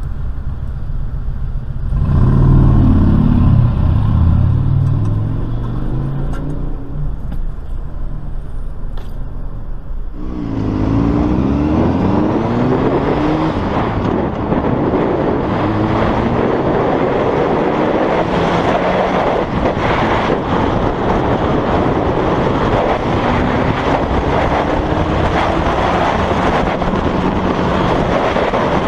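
A heavy truck's engine revving close by, a low drone rising and falling for several seconds. Then, about ten seconds in, a sport motorcycle's engine accelerating, its pitch climbing again and again through gear changes, over a steady rush of wind at speed.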